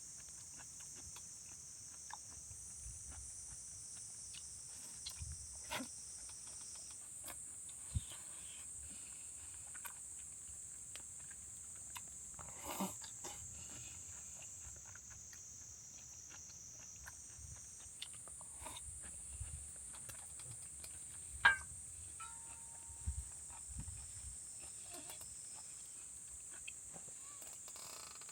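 Steady high-pitched insect chorus, with scattered light clicks and knocks and one sharper knock about two-thirds of the way through.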